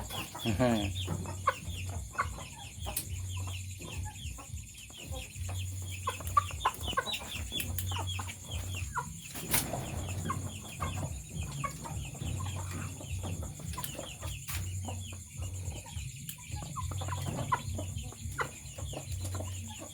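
Chickens clucking, with many short, high, falling calls throughout. A low hum comes and goes in the background, and there is a sharp click about halfway through.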